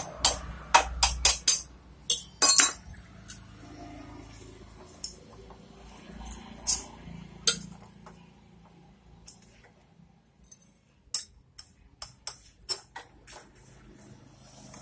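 Small metal parts clinking against a Bajaj Boxer motorcycle's cylinder head as nuts and washers go onto the head studs. There is a quick run of sharp clinks in the first three seconds, then scattered single clinks.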